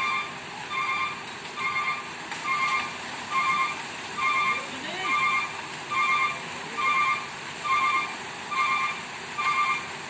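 A vehicle's reversing alarm beeping steadily, about one and a half short warbling beeps a second, with no change in pace.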